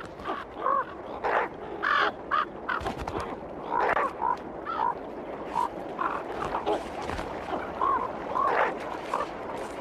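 Corvids calling: a rapid series of short caws, one after another.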